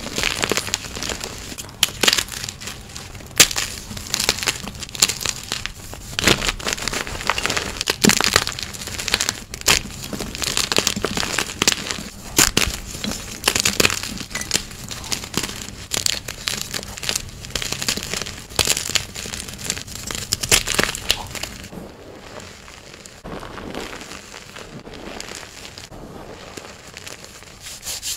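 Hands squeezing and crumbling chunks of gym chalk, a dense, irregular run of crunches and crackles. About three quarters of the way in it turns softer and sparser as the fingers work the crumbled powder.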